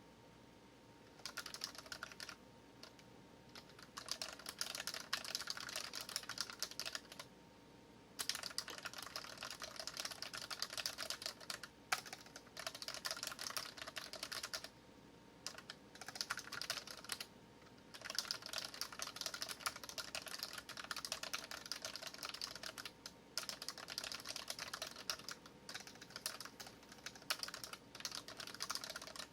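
Typing on a Dareu EK820 mechanical keyboard with red (linear) switches: fast runs of key strokes broken by short pauses of about a second.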